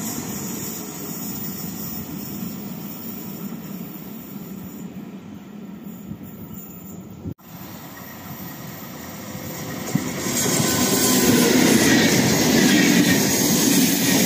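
Electric regional passenger train with double-deck coaches approaching along the line, then, after an abrupt cut about seven seconds in, running past close by. From about ten seconds in, its wheels on the rails make a loud, steady rumble.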